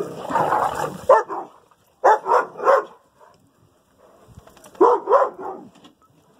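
Dogs barking in rough play. There is a burst of barking at the start, a quick run of about three barks around two seconds in, and two or three more about five seconds in.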